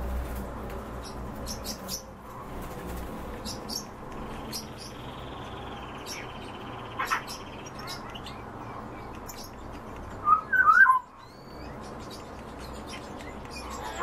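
Caged Eurasian golden oriole calling: scattered short high chirps, a soft rasp for a couple of seconds, and a brief warbled whistle about ten seconds in, the loudest sound.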